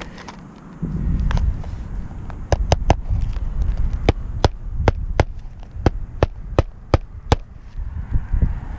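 A claw hammer driving roofing nails into an asphalt shingle: about a dozen sharp strikes, a few a second, setting the nails. Wind rumbles on the microphone underneath.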